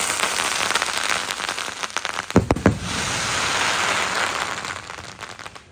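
Fireworks crackling densely, a rapid spray of small pops, with two deep booms in quick succession about two and a half seconds in; the crackle fades away near the end.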